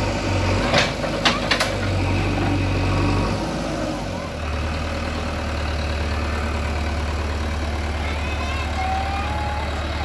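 JCB 3DX backhoe loader's diesel engine running steadily, its note shifting around four seconds in and then holding. A few sharp knocks about a second in, from brick demolition debris.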